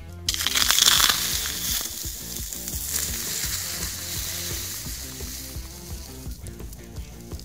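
Hot molten lead sizzling: a loud hiss starts suddenly just after the start, peaks about a second in and dies away over the next several seconds.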